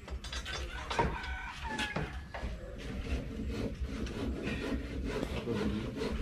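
Construction work: scraping and rubbing, with two sharp knocks about one and two seconds in, as cement is mixed and carpenters build wooden formwork for a slab.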